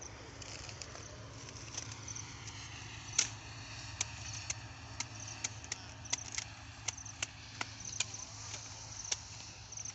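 Machete chopping through cabbage stalks: short, sharp knocks at an irregular pace of one or two a second, the loudest about three seconds in.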